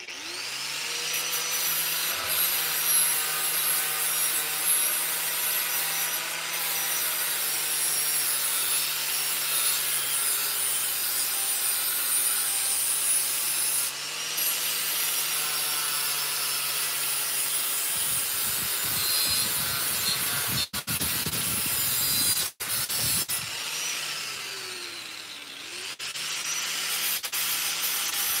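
Electric angle grinder running against a thick steel plate, grinding its edges and corners round. The grinding is steady over a constant motor hum, with two brief breaks about two-thirds of the way through and a short dip where the motor slows and picks back up near the end.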